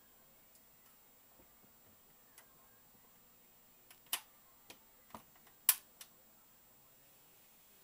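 About five sharp clicks or taps in quick succession around the middle, the loudest near the end of the run, against otherwise quiet room tone.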